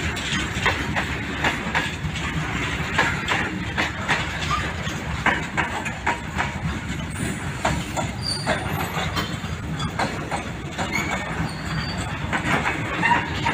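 Goods train's covered wagons rolling past: a steady rumble with a stream of irregular clacks and knocks from the wheels.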